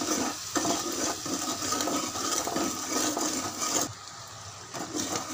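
Mutton and ground spices sizzling in hot oil in an aluminium pot while a steel ladle stirs and scrapes through them. This is the masala being roasted (bhuna) after the meat's water has dried off. The sizzle drops away about four seconds in.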